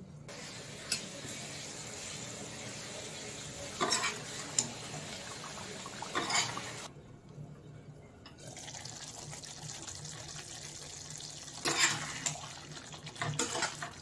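Curry simmering in a steel pan under a glass lid: a steady bubbling hiss that cuts out briefly about halfway, with a few sharp clinks. Near the end the lid clinks against the pan and a spatula scrapes through the thick curry.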